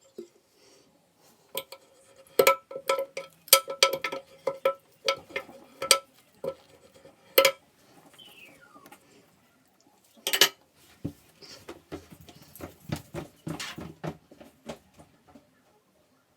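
Clinks and knocks of hard objects being handled, many carrying the same short ringing note. They come in a quick run in the first half and again from about ten seconds in.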